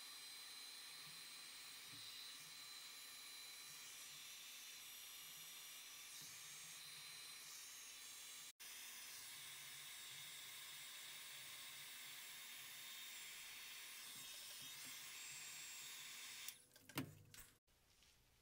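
Electric heat gun blowing hot air onto a dye-marbled wax candle, a faint steady hiss. The hiss cuts off about 16 seconds in, followed by a few short knocks.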